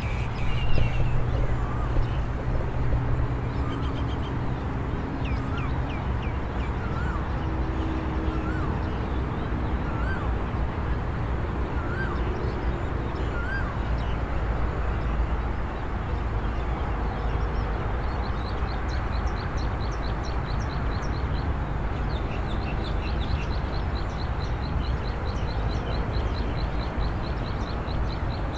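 Open-country dawn ambience: a steady low rumble with birds calling over it. Short upward call notes repeat about every second and a half in the first half, and a fast, high, repeated chirping runs through the second half.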